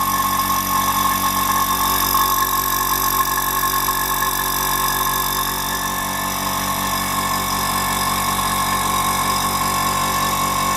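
Sparmax TC-610H single-piston airbrush compressor running steadily: an even motor hum with a steady high whine, the pump filling its 2.5-litre air tank.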